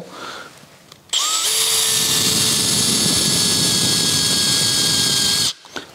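Handheld electric drill with a twist bit drilling into a ductile iron piece clamped in a vise. The motor starts about a second in, quickly spins up to a steady whine, runs under load and cuts off shortly before the end.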